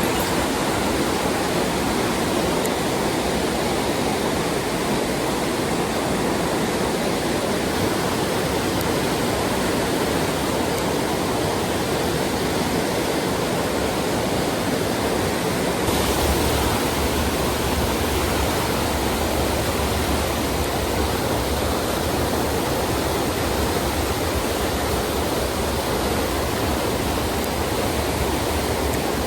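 Mountain stream water rushing steadily, a dense even wash of sound; about halfway through a low rumble joins underneath.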